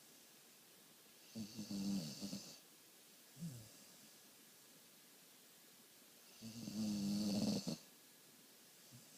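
Dog snoring loudly: two long snores about five seconds apart, each lasting about a second, with a short, fainter breath between them.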